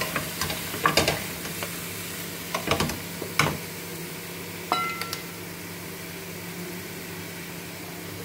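Chop suey vegetables sizzling in hot oil in a pan while being stir-fried, with a utensil scraping and knocking against the pan several times in the first five seconds, one knock ringing briefly like metal; the steady sizzle goes on after.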